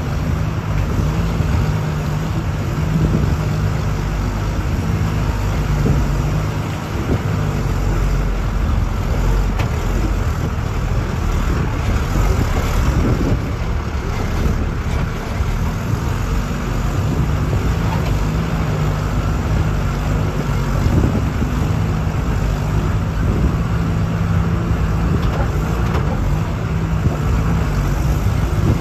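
Engine and road noise of a vehicle driving on a rough dirt road, heard from inside: a steady engine drone under a constant rumble, with scattered knocks and rattles from the bumps.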